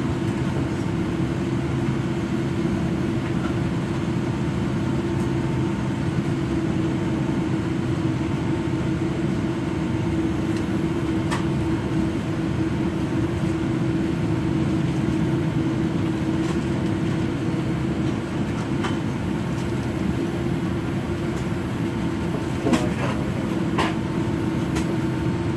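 Steady cabin drone inside a Boeing 787 Dreamliner on the ground, heard at a front window seat: a low rumble with a steady hum, and a few faint clicks, one about eleven seconds in and two near the end.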